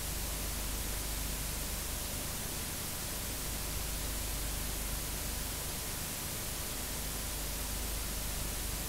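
Steady hiss of blank videotape playback static, with a low hum underneath and a faint steady tone.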